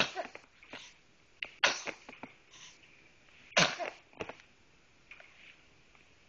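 A series of sneezes: three sharp, explosive bursts, the second a little under two seconds after the first and the third about two seconds later, the last with a voiced sound in it.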